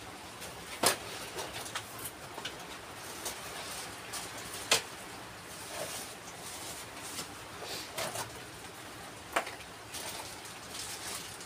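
A small cardboard box being opened and unpacked by hand: soft rustling with scattered sharp clicks and knocks, the loudest about a second in, around five seconds in and near the end.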